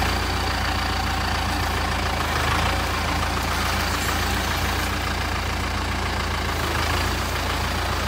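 Kubota compact tractor's diesel engine running steadily as the tractor backs its loader away.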